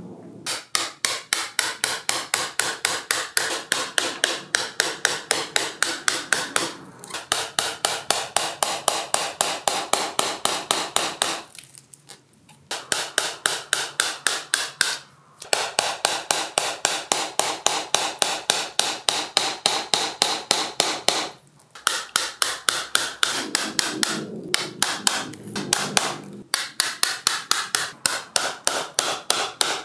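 Mallet tapping a carving gouge in a quick, even rhythm of about three to four strikes a second, chopping out the hollow of a wooden bowl blank, with a few short breaks.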